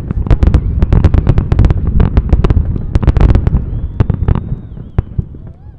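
Fireworks display: a rapid volley of bangs and crackles over a heavy low rumble, thinning out after about four seconds. A faint high whistle comes through as the bangs die down.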